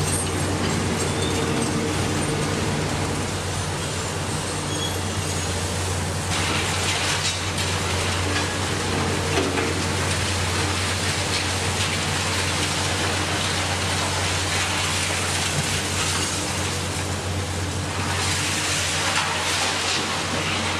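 Heavy demolition excavators' diesel engines running steadily under a constant noisy clatter of demolition work. A harsher hissing, crackling noise comes in about six seconds in and again near the end.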